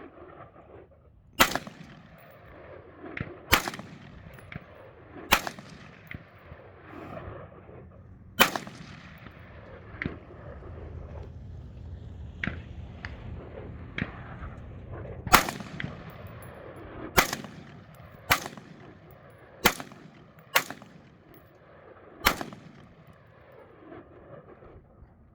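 AR-15 semi-automatic rifle fired in single, deliberate shots: about ten sharp reports at irregular gaps of one to three seconds, each followed by a rolling echo, with a few fainter cracks in between.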